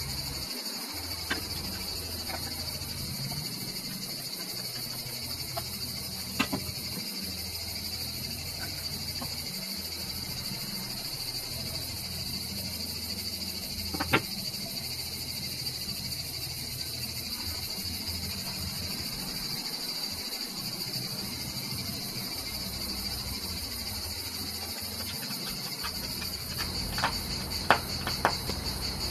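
Steady high-pitched insect chorus. A few sharp small clicks come from hand tools working a small circuit board's screw terminal: one about fourteen seconds in as pliers work the wire, and a quick cluster near the end as a small screwdriver tightens the terminal.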